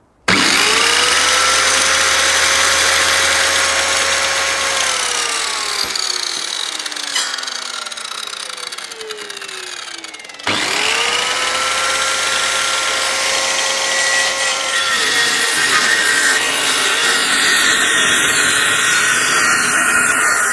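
Electric power saw switched on, run briefly at full speed, then left to spin down over several seconds before being started again. A few seconds after the restart it cuts into a pallet-wood slat, and its whine sags and turns rough under the load.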